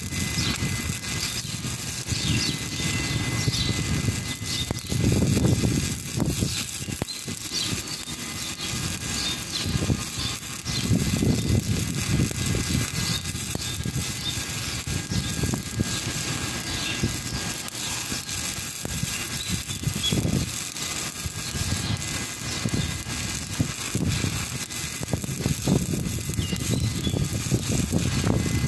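Stick (arc) welding: the electrode arc crackles and sizzles steadily as the weld is laid. A low rumble underneath swells and fades several times.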